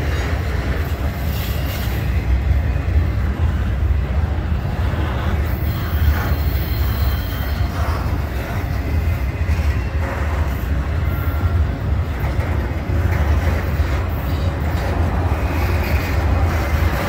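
Trailer-on-flatcar cars of an intermodal freight train rolling past close by, a steady rumble of steel wheels on the rails.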